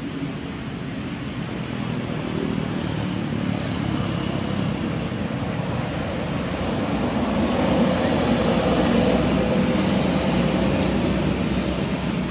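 Steady outdoor background noise: a constant high-pitched hiss over a low rumble, growing a little louder around the middle.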